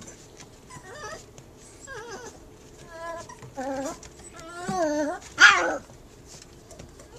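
Puppies yapping and whining at a cat: short calls that bend in pitch come about once a second and grow louder, ending in the loudest, harshest bark about five and a half seconds in.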